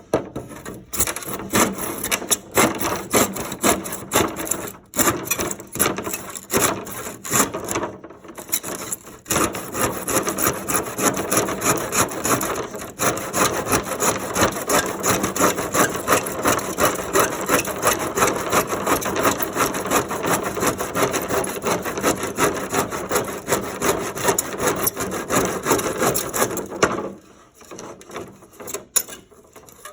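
Hand saw cutting wood in quick back-and-forth strokes, with a few short pauses, stopping about three seconds before the end.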